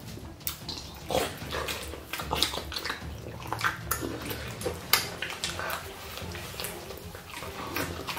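Close, wet eating sounds: two people chewing and smacking big mouthfuls of fufu with ogbono soup and goat meat, with many short irregular smacks and squelches.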